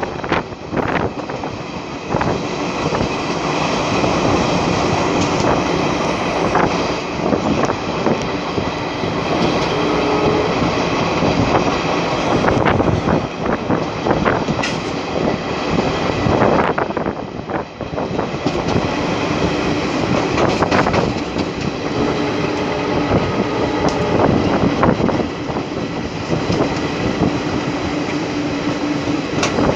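Passenger coaches of an express train running at speed, heard from the side of a moving coach. A steady rush of wheel and wind noise carries irregular clicks from the wheels over the rails, with a faint hum that comes and goes.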